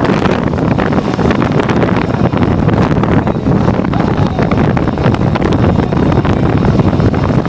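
Strong blizzard wind blowing against the microphone: a loud, steady rush of wind noise with constant low buffeting.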